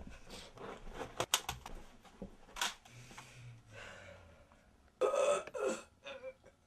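Scattered light clicks and taps, then two short strained vocal sounds from a person, like gasps or grunts, about five seconds in.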